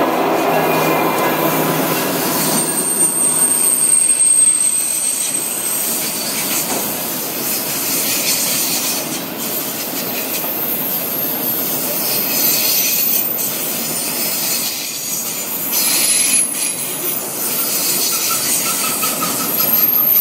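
Freight train rolling past close by. The diesel locomotive's engine drones for the first couple of seconds, then gives way to the steady rumble and clatter of autorack cars. High-pitched wheel squeal comes in now and then.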